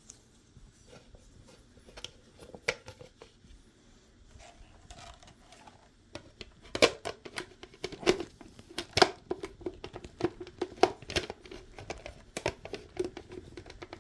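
Clicks and rustling from the plastic parts of a hand vacuum being handled, sparse at first and much busier from about seven seconds in.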